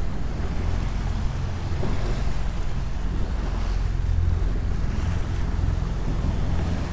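Motorboat engine running with a steady low hum, under wind buffeting the microphone and water rushing past the hull.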